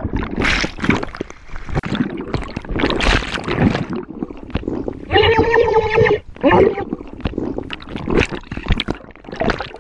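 Underwater rush and bubbling of seawater against the camera just after plunging in, in uneven surges. Twice, about five and six and a half seconds in, a held pitched cry-like sound rises above the water noise.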